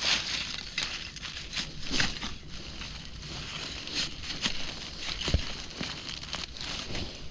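Dry leaves and twigs crackling and rustling in uneven bursts as someone moves through forest undergrowth, with a few soft knocks.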